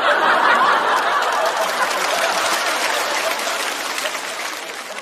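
Studio audience laughing and clapping in response to a joke, loudest at once and slowly dying away over a few seconds.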